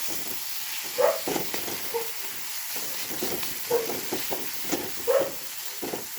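Fermented soybeans with tomato and onion sizzling in oil in a pan, with a steady hiss, while a spatula stirs and scrapes the pan in short strokes every second or so.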